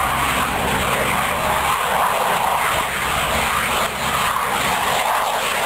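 Airplane engine running with a steady, loud drone.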